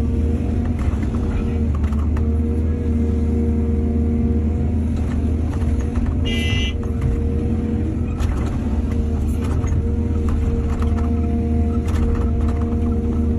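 Diesel excavator engine running steadily, with scattered knocks throughout and a short high-pitched tone about halfway through.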